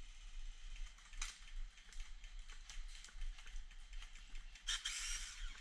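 Airsoft electric guns (AEGs) firing in the distance: scattered sharp clicks and cracks, then a short rattling burst near the end that sounds like an AEG that has died.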